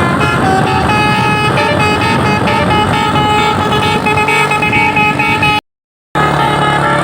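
A truck's Basuri telolet musical air horn plays a tune of stepped, held notes over the running engine. The sound cuts out for about half a second near the end, then the horn notes start again.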